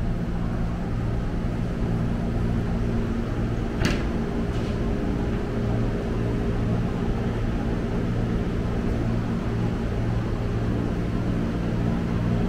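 Electric commuter train standing at the platform, the steady hum of its onboard equipment holding even low tones. A sharp click about four seconds in, with a fainter one just after.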